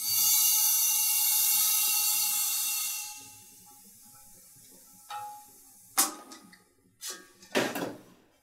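Propane hissing hard out of a small red gas cylinder through its valve and hose into a bank of steel receiver tanks, with a faint whistle in the hiss; it dies away after about three seconds. Then several sharp metallic clicks and knocks from the valves and fittings.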